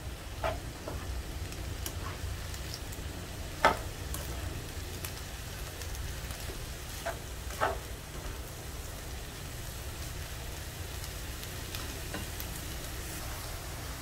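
Shredded cabbage and carrot stir-frying in a little oil in a nonstick wok: a steady sizzle, with several knocks of the spatula against the pan, the loudest about four seconds in.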